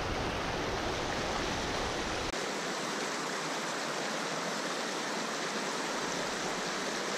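Rio Grande rapids rushing over rocks in a steady broad roar. A low rumble under the rush stops abruptly about two seconds in.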